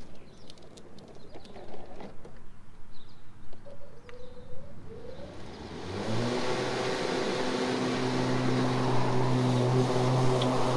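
Battery lawn mower's electric motor off while the mower is turned, with a few light clicks, then spinning up with a rising whine about six seconds in and running steadily as mowing resumes. The mower has to be shut down for each turn and restarted with both levers, because its self-propelled rear wheels can't be disengaged on their own.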